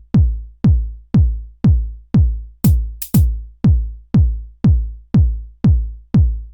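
Electronic dance music led by a deep drum-machine kick on every beat, about two a second, each hit dropping quickly in pitch. A few short high hi-hat or clap hits come in about halfway through.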